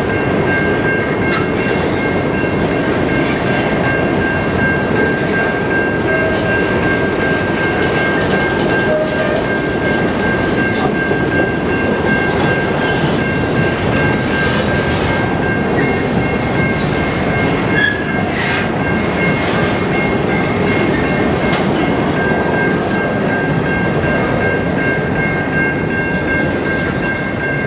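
Covered hopper cars of a freight train rolling past: a steady rumble of steel wheels on rail with a constant high-pitched ringing tone over it, easing slightly near the end.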